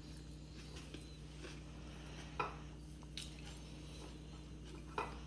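Eating at a plate of rice: a few sharp clinks on the plate, the loudest about two and a half seconds in and again near the end, between soft mixing sounds over a low steady hum.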